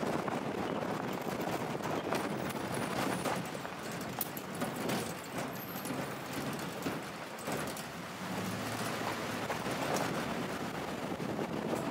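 Vehicle driving along a road, with wind rushing over the microphone and road noise, and scattered knocks and rattles from bumps.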